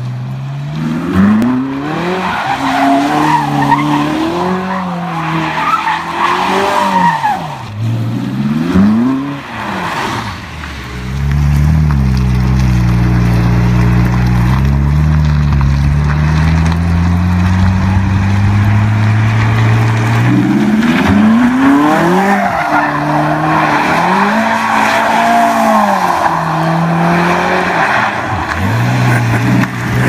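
Ferrari 458 Spider's naturally aspirated V8 revving up and down as the car drifts in circles, its tyres squealing. For about ten seconds in the middle the engine holds a steady note at held revs, then the revving and tyre squeal return.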